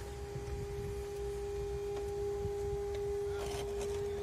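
A steady, unchanging hum-like tone at one pitch, with low rumbling noise beneath it and a few faint clicks about three and a half seconds in.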